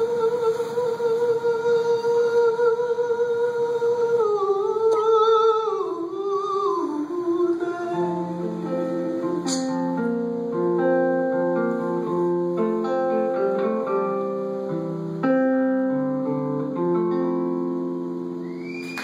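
A male voice holds a long wavering note, then slides down through a falling run of notes about four seconds in. Fingerpicked acoustic guitar chords take over at about eight seconds and play on, fading a little near the end, as the song ends.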